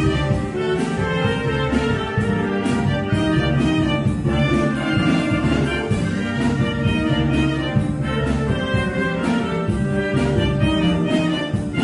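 Wind band playing live, brass to the fore, with a steady flow of sustained notes and chords.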